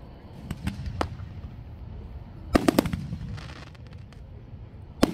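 Aerial fireworks bursting in the night sky. A few sharp reports come about half a second in, then a quick cluster of four loud bangs past the middle, a brief hiss, and two more loud bangs at the end.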